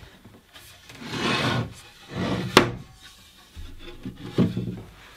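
A small MDF cabinet handled on a workbench: wooden rubbing and sliding, a sharp knock about two and a half seconds in, and lighter knocks as its flush-hinged door is swung open.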